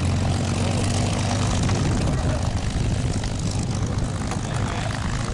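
P-51 Mustang's Packard Merlin V-12 engine running steadily at low power as the fighter taxis along the runway.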